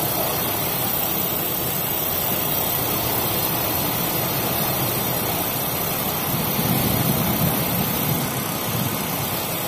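Steady loud rushing noise with no clear tone, a little heavier in the low range about two-thirds of the way through.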